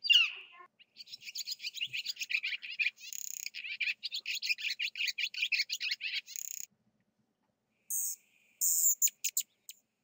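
Barn swallow song: a long, rapid twittering of quick squeaky notes lasting several seconds, after a short falling note at the very start. Near the end, short, very high chips of another call begin.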